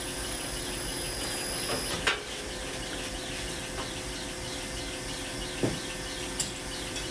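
Power rolling mill running with a steady hum and a fast, high chatter while a hot damascus billet is rolled between its rollers. A sharp clunk comes about two seconds in, and two short knocks come near the end.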